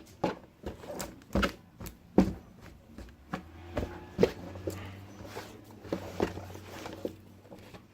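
Scattered clicks and knocks of plastic door-trim parts and screws being handled by hand, with a low steady hum from about three seconds in until near the end.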